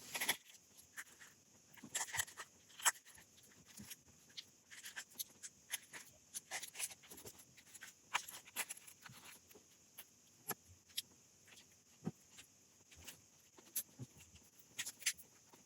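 Faint, irregular small clicks and taps from handling an opened smartphone and its internal parts during disassembly.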